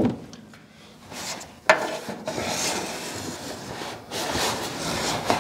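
Stiff pressed paper rubbing and scraping against a bare metal car body as it is held flat and traced from behind with a marker. There is a single sharp knock about a second and a half in.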